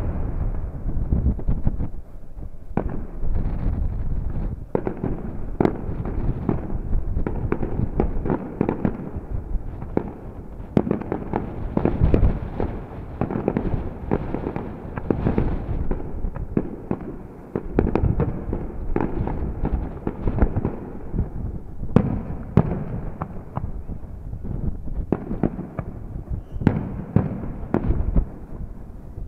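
Aerial fireworks display: a dense, continuous run of shell bursts and crackling, with sharper bangs standing out every few seconds.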